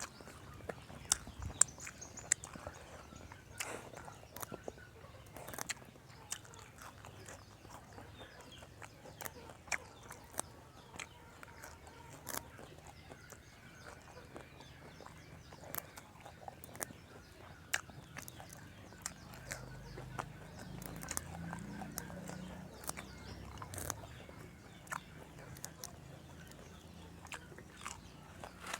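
Close-up eating sounds: a person biting and chewing chicken feet from a spicy tam sua salad, with many irregular sharp crunches and smacks.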